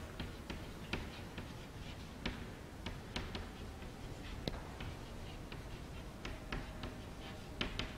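Chalk writing on a chalkboard: a string of short, irregular taps and scratches as each letter is written.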